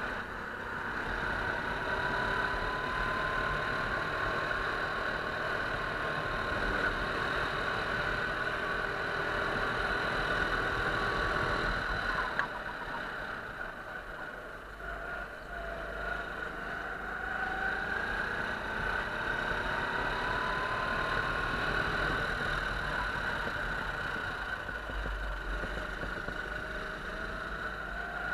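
Go-kart engine heard close from on board while lapping, its pitch slowly rising under acceleration and falling off as the throttle is eased, with a brief drop in loudness about twelve seconds in before it climbs again.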